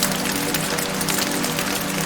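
Steady rain, with soft background music of sustained low held notes.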